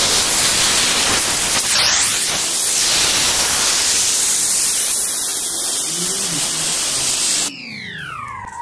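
Loud, steady hiss that cuts off abruptly about seven and a half seconds in, followed by a smoothly falling tone that levels out.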